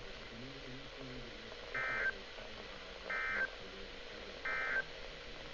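Three short bursts of warbling digital data tones, about a third of a second each and evenly spaced. They are the Emergency Alert System (SAME) end-of-message code on a NOAA Weather Radio broadcast, marking the end of a weather statement.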